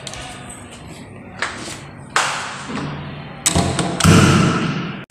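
A few clicks and knocks, then a heavy thud about four seconds in; the sound cuts off suddenly just before the end.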